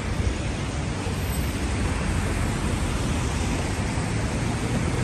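Steady city background noise of road traffic, an even hiss with a constant low rumble, on a wet, rainy night.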